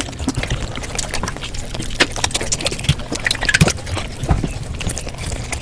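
Mukbang eating sounds sped up five times: a fast, dense run of chewing and mouth clicks, several a second.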